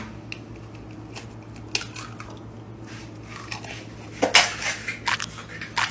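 Kitchen clatter as eggs are cracked over a bowl and a frying pan is handled on the stovetop: light clicks and taps, then a run of louder knocks and scrapes about four seconds in, over a steady low hum.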